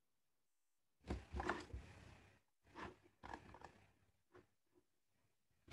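Faint room tone on a video-call microphone, broken from about a second in by a few short, irregular noises, the loudest coming first.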